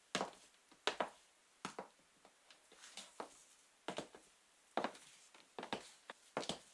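Steve Madden high-heeled sandals tapping on a hard floor in slow walking steps, about one step every 0.8 seconds, each step a sharp double click with fainter taps between.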